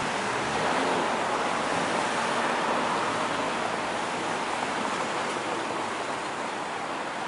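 Steady rush of city street traffic, an even noise with no distinct engine, horn or bell, swelling slightly in the first few seconds.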